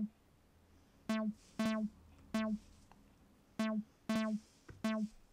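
Synthstrom Deluge groovebox playing a looped synth sequence: short, bright notes all at one pitch, in a three-note figure (two close together, then one more) that repeats about every two and a half seconds.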